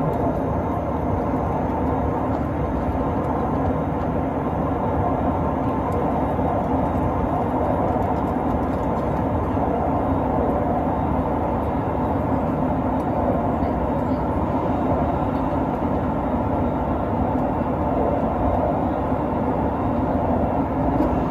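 Steady cabin noise of an Airbus A320-family jet airliner in cruise: the constant low rush of the engines and the airflow, heard from a seat over the wing.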